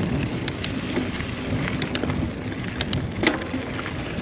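Mountain bike rolling over a loose dirt trail: a steady rush of tyre and wind noise with a few sharp clicks from gravel and the bike's parts.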